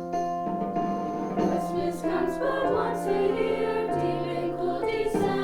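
School choir singing a Christmas carol with instrumental accompaniment. Held instrumental chords open, and the voices come in about a second and a half in.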